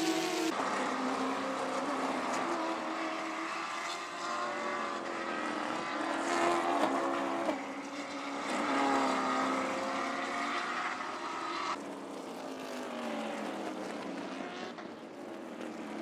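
Stock car racers' V8 engines at full throttle as a pack of cars goes by, their pitch rising and falling through gear changes and corners. The sound changes abruptly about half a second in and again near twelve seconds in.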